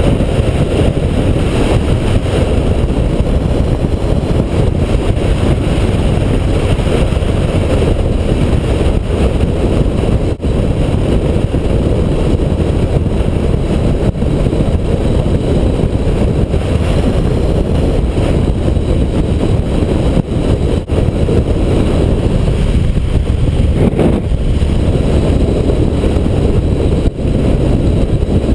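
Steady wind rush on the microphone mixed with road and engine noise from a motorcycle riding at speed, with no clear changes in pace.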